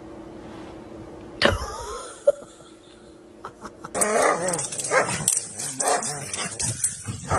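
A dog barking in a series of loud, short cries with wavering pitch, starting about four seconds in, after a sharp click about two seconds in.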